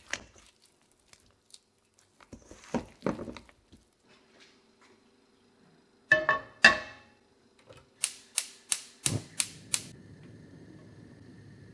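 Floured potato slices tossed in a steel mixing bowl, then a nonstick frying pan set down on a gas hob's cast-iron grate with two ringing metallic clanks. The hob's igniter then clicks six times, about three a second, and the gas burner catches partway through the clicking and burns with a steady hiss.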